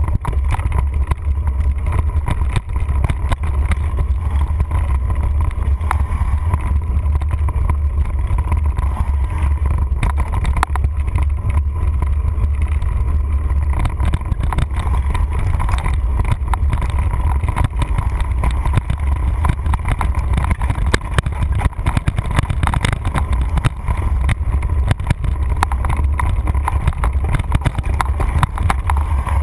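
Mountain bike rattling and clattering over a rough dirt trail, heard through a handlebar-mounted camera, with heavy wind rumble on the microphone from the speed of the descent.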